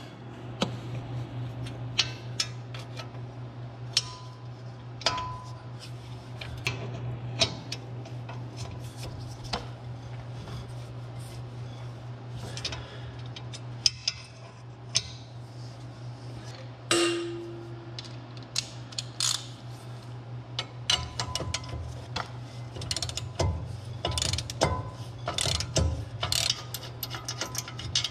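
Hand ratchet and wrench working the 18 mm caliper bracket bolts loose, with scattered clicks and metal-on-metal clinks as the tools turn and the bolts come out. A steady low hum runs underneath.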